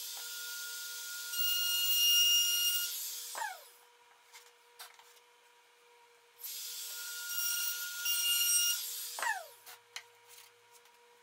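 Compact Makita router run twice, cutting grooves in plywood. Each time it is switched on with a high whine that grows louder as the bit cuts, then it is switched off and winds down in a falling whine: the first a little over three seconds in, the second a little past nine seconds. A few light clicks fall between the two cuts.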